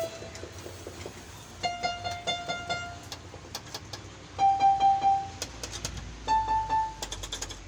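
Yamaha PSR-E443 electronic keyboard sounding single notes as its keys are tested one by one: one note struck about four times in quick succession, then two single higher notes, each a step above the last. Short plastic key clicks come in between and near the end, from keys pressed that give no note, typical of the keyboard's dead or freezing keys.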